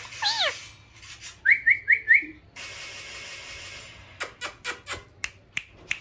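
Indian ringneck parakeet calling: one falling squawk at the start, then four quick rising whistled chirps. After a short hiss, a run of sharp snapping sounds comes near the end as the bird flaps its wings.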